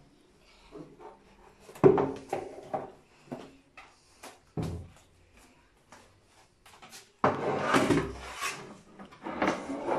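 A step stool being moved into place: a few separate knocks and bumps, then a longer rough noise of about a second near the end.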